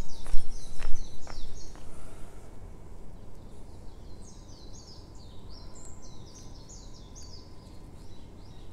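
Footsteps that stop about two seconds in, and a songbird singing two runs of quick, high repeated notes, the second starting about four seconds in.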